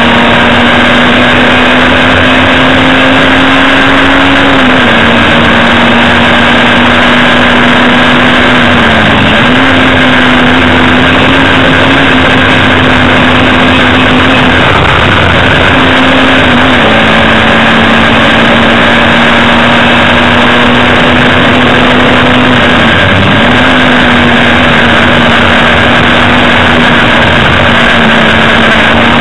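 Hillman Imp race car's rear-mounted all-aluminium four-cylinder engine heard from inside the cabin, loud and held at high revs under racing load, with road and wind noise. The note dips briefly four times as the driver lifts off or changes gear, then picks back up.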